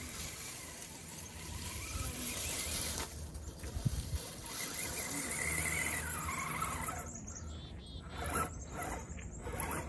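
Electric motor and geared drivetrain of a radio-controlled rock crawler whining, rising and falling in pitch with the throttle as it crawls over the dirt. A few short clicks and crunches come near the end as the truck climbs close.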